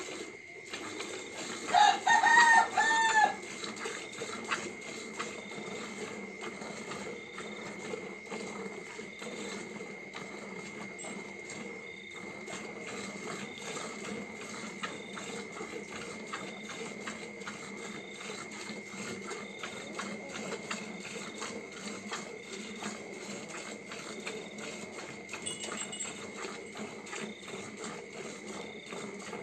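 Milk squirting from a cow's teats into a plastic bucket during two-handed hand milking, a steady fine patter of streams. A rooster crows about two seconds in, the loudest sound.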